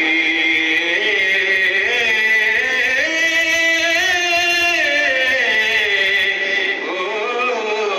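A man singing Punjabi poetry (kalam) into a microphone, in long drawn-out notes that waver in pitch, with one long held note in the middle.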